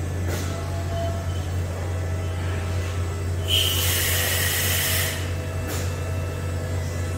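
Steady low hum of a running Mazak Variaxis i-300 AWC machining cell. About three and a half seconds in comes a hiss of compressed air lasting about a second and a half, with a faint click before and after it.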